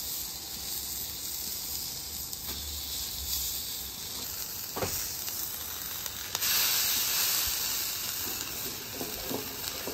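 Red onion slices and bubbling teriyaki sauce sizzling on a hot flat-top griddle, a steady hiss. There is a brief knock a little before the middle. About six seconds in the sizzle grows louder as a cast-iron grill press is set on the onion.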